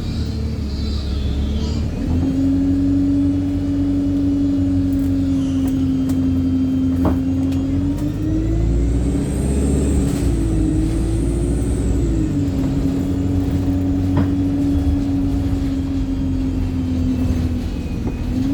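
Wright StreetLite single-deck bus driving at speed: a steady engine and drivetrain whine over low road rumble. The pitch wavers up and down for a few seconds around the middle, and there are two sharp clicks.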